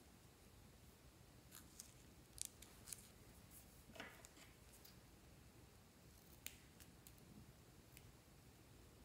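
Faint, scattered sharp clicks and snips: scissors cutting the tip off a plastic piping bag filled with slime, with light handling of the bag.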